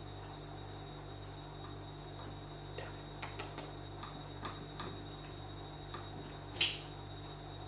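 Scattered light clicks and taps over a steady low hum, with one brief, louder noisy burst about six and a half seconds in.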